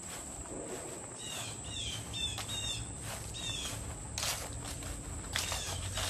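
Summer backyard ambience: a steady high-pitched insect drone, with a bird giving runs of short down-slurred calls, several a second, and a couple of soft thumps from someone walking across the grass.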